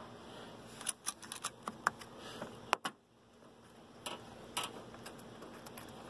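Light metal clicks and clinks of a battery's negative cable clamp being worked onto the terminal post, coming as a scatter of sharp, irregular clicks.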